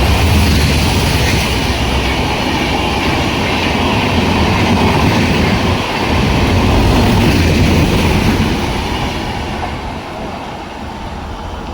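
Indian Railways express passenger train running past at speed, its coaches making a loud, steady rush of wheel and rail noise that fades after about eight seconds as the train goes away.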